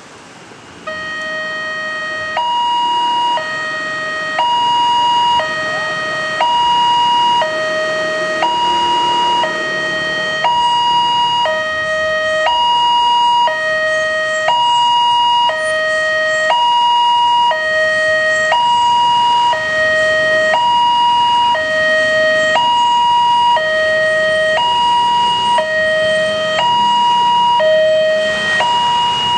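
Railway level-crossing warning alarm from the crossing's horn loudspeaker, starting about a second in: an electronic two-tone signal, a lower and a higher tone alternating about once a second, warning that a train is approaching.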